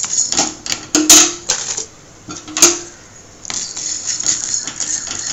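Wooden spatula stirring dry-roasting chana dal, urad dal, black peppercorns and cumin seeds in a dry metal kadai: the seeds scrape and rattle across the pan, with a few sharper knocks that make the pan ring. There is a short lull about two seconds in before the stirring picks up again.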